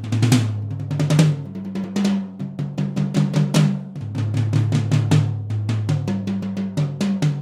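Groove Drum Co. walnut-core, birch-masur drum kit played in a continuous groove and fills: tom-toms ringing at several pitches, with snare and 20-inch bass drum strokes. The strokes come faster and denser from about four seconds in.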